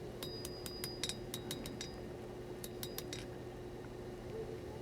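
Hammer striking a hot 1095 steel blade tip on the anvil, drawing out the taper: quick light blows with a short metallic ring, about four a second for nearly two seconds, a pause, then a few more about three seconds in.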